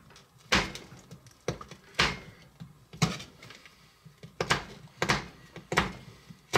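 Small kitchen knife chopping a hard Heath toffee bar on a plastic cutting board: about seven sharp knocks as the blade cracks through the toffee and strikes the board, at uneven intervals.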